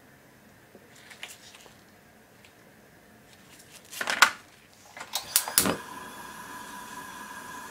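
Hard mussel shells clicking and knocking against each other and the wire-mesh basket as they are handled, loudest about four seconds in. Then a gas stove burner clicks several times as it is lit and settles into a steady hum.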